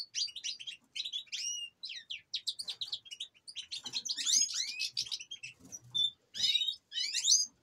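Caged finches singing and twittering: quick runs of high chirps, trills and sweeping notes, several birds overlapping.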